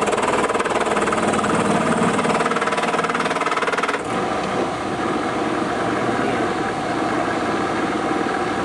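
Milling machine running with a 9/16 cutter boring into a hard cast pulley, the tool chattering badly; the sound changes abruptly about four seconds in.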